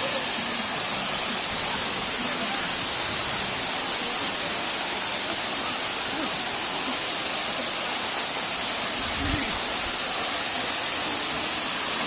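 Waterfall cascading over rocks into a shallow pool: a steady, even rush of water.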